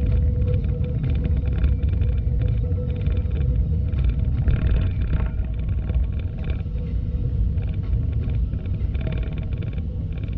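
Steady low rumble of a vehicle in motion, with a faint steady hum above it.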